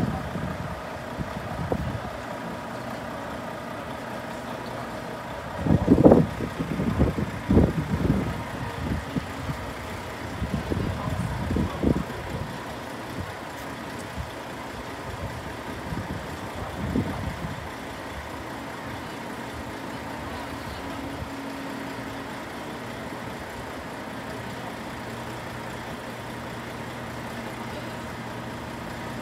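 A steady low engine hum, with a cluster of uneven, louder low rumbles from about six to twelve seconds in and one more shortly after.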